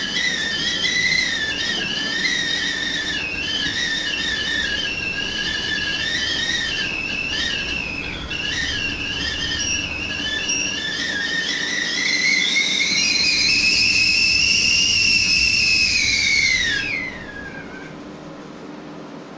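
Stovetop whistling kettle whistling at the boil: a loud, wavering high whistle that climbs in pitch about two-thirds of the way through, then slides down and dies away near the end as the kettle comes off the heat.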